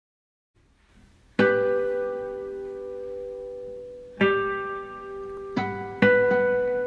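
Classical guitar ensemble playing sparse, separate plucked chords. The first comes about a second and a half in and rings on for several seconds, and further chords follow near four seconds and around five and a half to six seconds.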